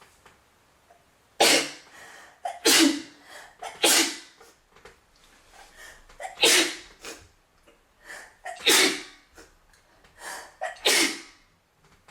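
A young woman sneezing again and again, about six loud, sharp sneezes a second or two apart, with quieter breaths and catches between them.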